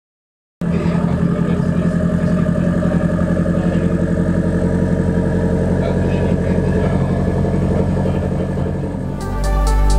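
Turbocharged Perodua Alza's 1.5-litre four-cylinder engine running at a steady idle, heard at the exhaust tailpipe, starting about half a second in. Electronic music with a beat comes in near the end.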